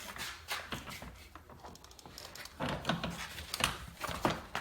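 Handling noise of a car door panel and its plastic parts: scattered light clicks, taps and rustles, thickest in the second half.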